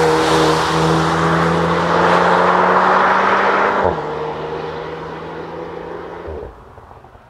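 VW Golf R's 2.0-litre turbocharged four-cylinder running hard through an Akrapovič exhaust at steady revs. About four seconds in, the pitch drops a step, and then the sound fades away.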